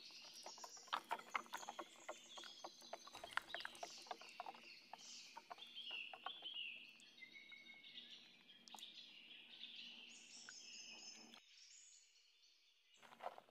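Silicone spatula stirring thick gram-flour batter in a glass bowl: faint quick clicks and scrapes, with birds chirping in the background. The stirring stops about halfway, and the sound drops out briefly near the end.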